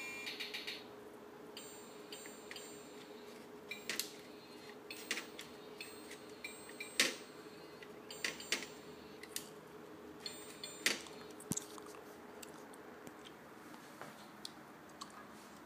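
Electronic notes from a children's toy keyboard trail off in the first second. After that, irregular sharp clicks and taps come from fingers pressing its rubber button contacts and handling the plastic casing, the loudest about seven seconds in, over a faint steady hum.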